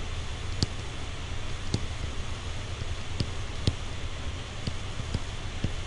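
Stylus tapping on a tablet screen while handwriting: scattered light ticks, about eight in six seconds, over a steady hiss and low hum.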